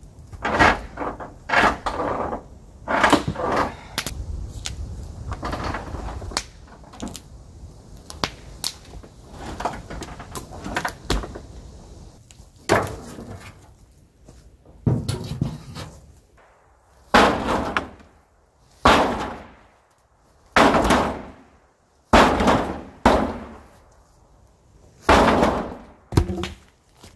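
Old boards and sheet-iron roofing of a derelict wooden shelter being wrenched loose and handled. A close run of loud cracks, creaks and knocks gives way, after about twelve seconds, to separate loud bangs every second or two.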